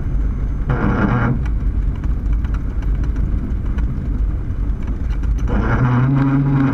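Cessna 152's four-cylinder Lycoming engine and airflow, a loud, steady drone in flight. Two short, higher sounds break in over it, one about a second in and a longer one near the end.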